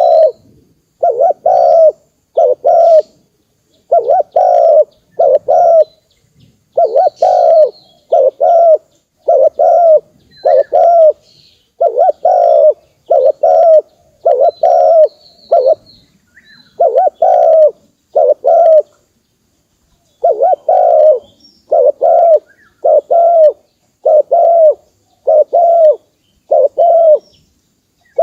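Spotted dove cooing over and over in short groups of two or three low notes with brief pauses between groups, the call hobbyists use to lure wild doves. Faint high chirps of other small birds are heard between the coos.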